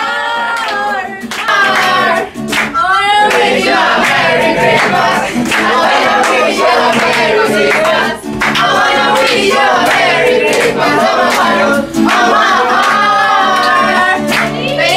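Group singing a festive song over music, with hand clapping along.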